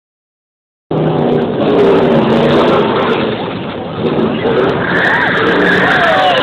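NASCAR stock car's V8 engine running hard with its rear tyres spinning and squealing in a burnout. It starts abruptly about a second in and stays loud throughout.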